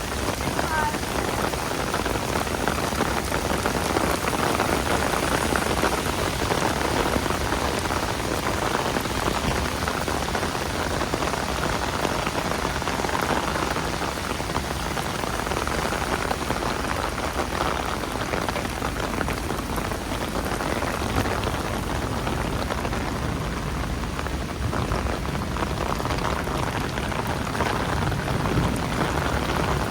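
Rain falling steadily in a rainstorm, a continuous even hiss with no let-up.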